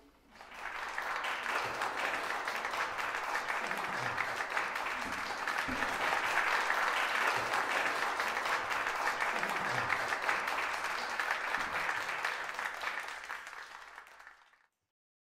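Audience applauding, steady clapping that starts about half a second in and cuts off suddenly near the end.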